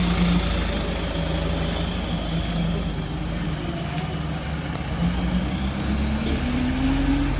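Diesel truck engine running as the truck pulls away, its pitch rising steadily near the end as it speeds up.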